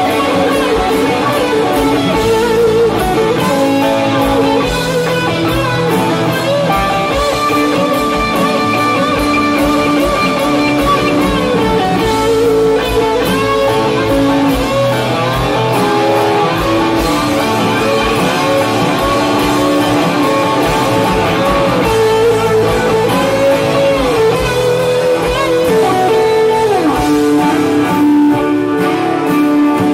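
Guitar-led music with held notes and an occasional bend in pitch, laid over the footage.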